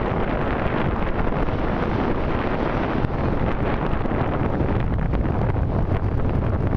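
Storm wind buffeting the microphone: a steady, loud rumbling wind noise with no separate events.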